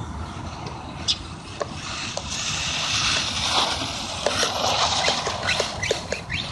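Electric RC car with a 540-size brushless motor driving on wet, slippery ground: a hiss of tires and spray with scattered ticks, growing louder in the middle as the car comes closer.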